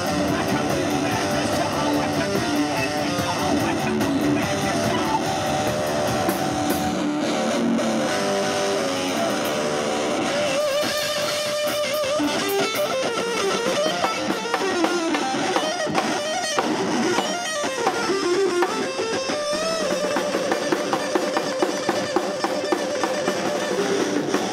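A live rock band playing, with electric guitar and drum kit. The deep bass drops out about seven seconds in.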